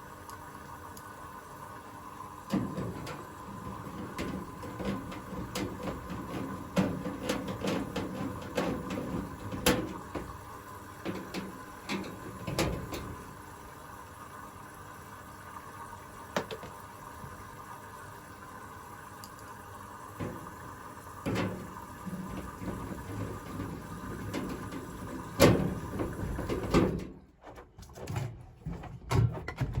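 Irregular knocks, clicks and rattles of hands working on a washing machine's cabinet and panels, with the louder knocks coming about 9, 12 and 25 seconds in, over a steady faint hum.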